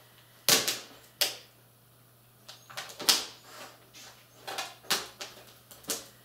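A series of sharp clicks and knocks at uneven intervals, the loudest about half a second in, with a few fainter ones in between.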